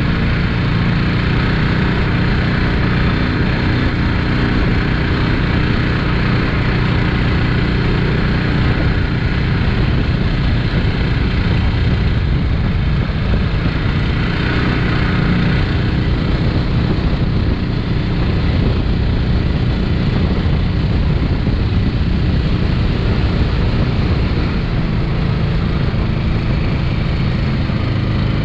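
Harbor Freight 13 hp Predator single-cylinder engine on a longtail mud motor running steadily under load, driving a loaded jon boat at cruising speed, with rushing water and wind noise.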